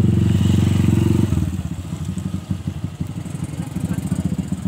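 Small motorcycle engine running close by, steady at first, then dropping about a second in to a slower, uneven idle with separate firing pulses.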